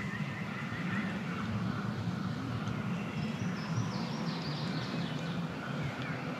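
Songbirds singing in spring hardwood woods, with short repeated phrases and a run of descending notes a few seconds in, over a steady low rumble.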